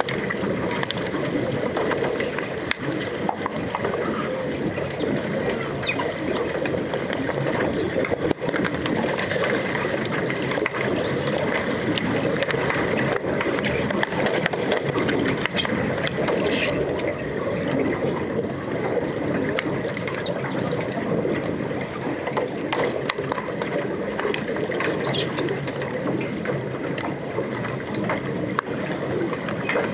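Underwater pool sound: a steady churning wash of water and bubbles stirred by underwater hockey players finning and diving, heard through an underwater camera, with scattered sharp clicks.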